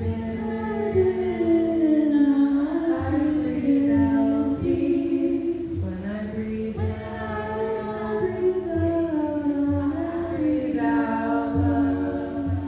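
Voices singing together, a slow chant-like song with long held notes over a steady lower note, and a soft low pulse about once a second.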